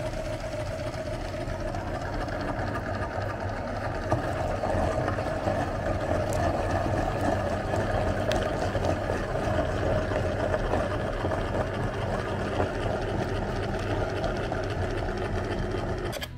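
Motor-driven meat grinder running steadily as it grinds ice cream and wafer and pushes it out through the plate. It grows a little louder about four seconds in and stops right at the end.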